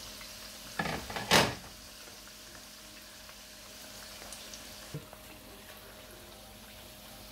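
Samosas deep-frying in hot oil over a medium gas flame, a steady sizzle and bubbling. About a second in there are two short loud noises, the second the loudest.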